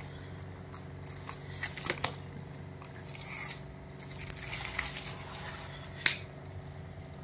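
Plastic-wrapped VCD and DVD cases being handled and shifted: crinkling plastic and scattered clicks, with one sharper click about six seconds in, over a faint steady hum.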